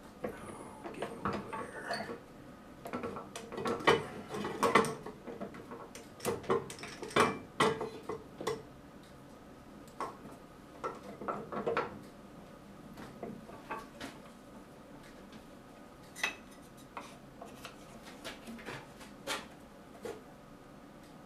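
Metal band saw wheel and a new tire being worked over its rim by hand with a clamp and a wooden stick: irregular clicks, taps and clinks, busiest in the first nine seconds and sparser after.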